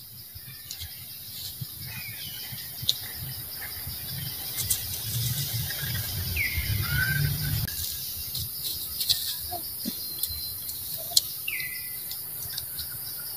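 Outdoor jungle ambience: a steady, high, pulsing insect drone with a few short falling chirps, a handful of sharp ticks, and a low rumble around the middle.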